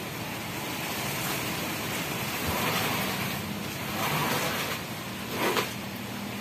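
Steady running noise of the machinery at a bore-well drilling rig, with a low hum and a wash of flushing water, swelling louder about two and a half and four seconds in, and a short sharp knock or splash about five and a half seconds in.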